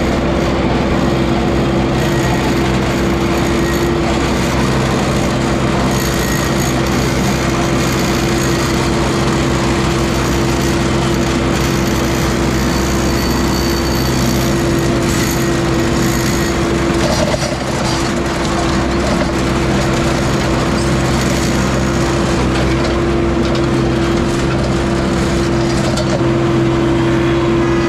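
A large engine running steadily at a constant speed, with a steady hum throughout.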